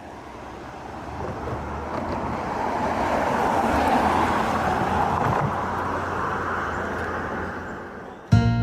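Road traffic noise: the rush of a passing vehicle swells over a few seconds and slowly fades. Near the end it is cut off abruptly by acoustic guitar music.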